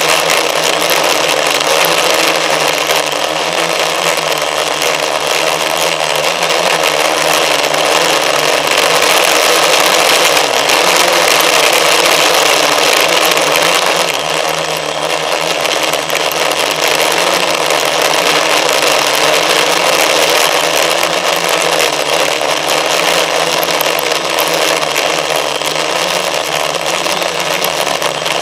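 A motor runs steadily with a dense rushing noise over it, holding a nearly even pitch with slight wavering and a small dip about halfway through.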